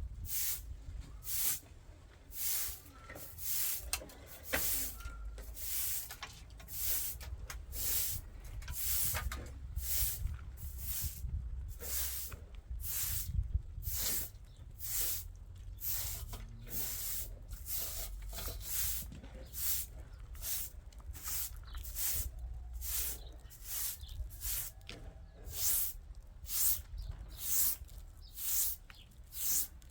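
Rhythmic hissing scraping strokes, about one and a half a second, from a hand tool being worked back and forth over a rough surface such as mortar or tile.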